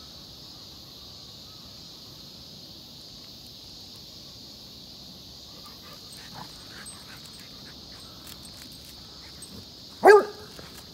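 American Foxhound giving one short, loud bark about ten seconds in, an alarmed bark at a crayfish it is afraid of, over a steady high-pitched background hiss.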